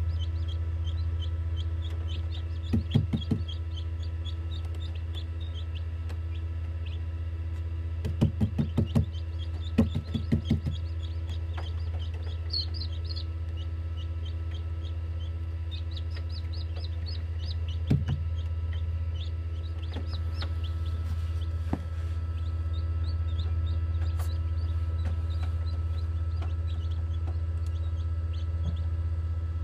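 Newly hatched chicks peeping rapidly inside a Hovabator egg incubator, over the incubator's steady low hum. A few short bursts of knocking come about three seconds in, again from eight to ten seconds, and once near eighteen seconds.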